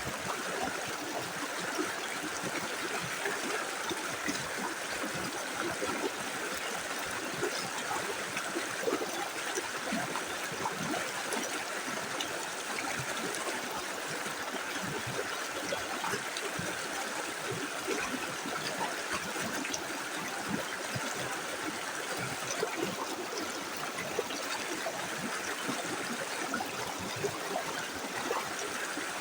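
Small river flowing steadily over stones, a continuous rushing with small gurgles and splashes.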